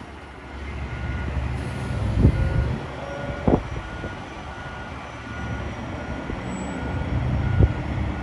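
Garbage truck's reversing alarm beeping steadily, about one and a half beeps a second, over the diesel engine's low rumble, which swells twice. Three sharp metallic clanks come from the truck's body and lift arms.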